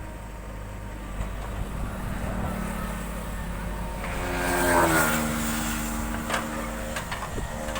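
JCB 3DX backhoe loader's diesel engine running steadily, swelling in a brief rev about four to five seconds in and then holding a steady note. A couple of light knocks come near the end.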